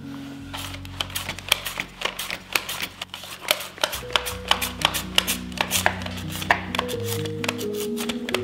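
Carrot being sliced on a handheld mandoline slicer: a run of quick, crisp slicing strokes, a few a second. Soft background music with held low notes plays under it.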